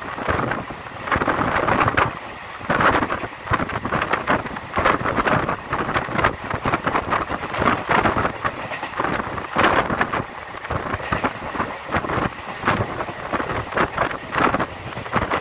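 Indian Railways express passenger coach running at speed, heard at an open window: a steady rumble of wheels on rail with irregular clatter, and wind rushing in at the window.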